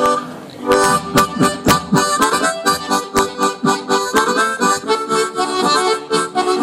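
Harmonica and two-row button accordion playing a lively tune together. A held chord dies away at the start, and about a second in the duet sets off on a quick tune marked by crisp, evenly spaced rhythmic attacks.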